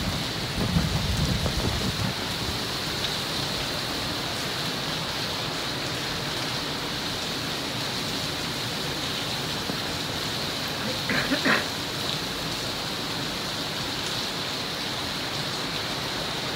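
Hurricane eyewall wind and heavy rain: a steady rush of wind-driven rain and wind through trees. Wind buffets the microphone in the first couple of seconds, and a brief, higher sound comes about eleven seconds in.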